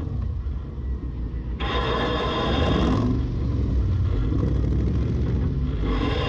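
Off-road pickup's engine running at a standstill, a steady low rumble. A higher steady whine cuts in abruptly for about a second and a half a little after the start, and again near the end.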